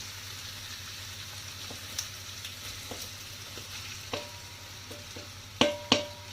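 Onions sizzling in hot oil in a pan while a metal spatula stirs, tapping the pan lightly a few times, then striking it twice sharply with a ringing clang near the end.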